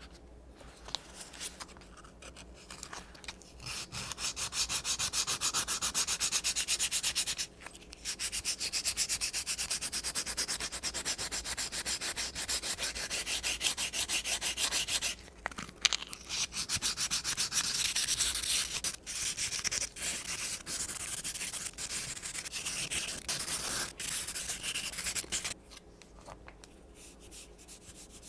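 Hand sanding of an old wooden knife handle with a 120-grit sanding disc: quick back-and-forth scratchy strokes that start a few seconds in, break off briefly twice, and stop shortly before the end.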